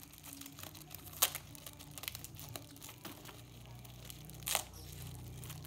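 Clear plastic sleeves and bags crinkling as they are handled, with two sharper crackles, about a second in and near the end, over a low steady hum.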